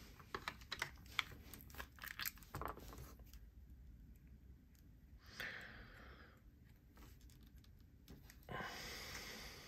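Faint small clicks and taps of disassembled folding-knife parts being handled and set down on a leather desk mat, followed by two soft hissing rustles, the second near the end.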